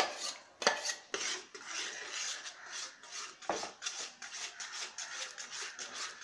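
Metal whisk stirring gram-flour and curd batter in a kadhai, scraping and clinking against the pan in quick rhythmic strokes of about four a second, worked continuously to keep lumps from forming. A sharp clank of metal on the pan comes at the very start.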